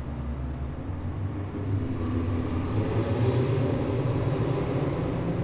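A low, noisy rumble like a passing vehicle. It swells about two seconds in and stays loud, peaking a little after three seconds.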